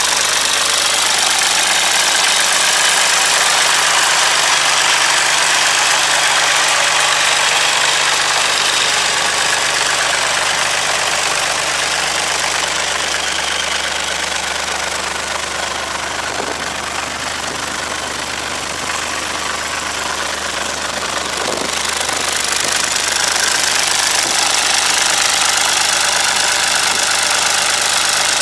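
Massey Ferguson 135 tractor's engine running steadily at idle, a little quieter about two-thirds of the way through before coming back up.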